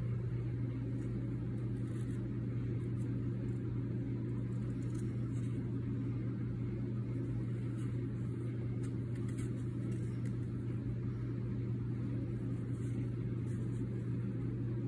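Steady low machine hum with a strong deep tone that does not change.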